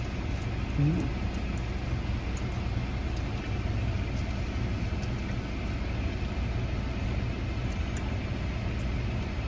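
Steady low rumble of motor vehicles, with faint clicks scattered through it.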